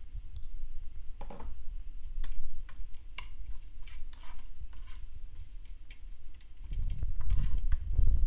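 Wooden spatula stirring and scraping chopped garlic frying in oil in a frying pan, with a light sizzle and irregular scrapes against the pan. A louder low rumble comes in near the end.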